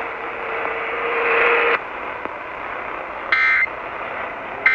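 Broadcast radio hiss that cuts off suddenly a little under two seconds in, followed by two short, shrill Emergency Alert System data bursts about 1.3 seconds apart. These are the end-of-message code that closes an EAS monthly test.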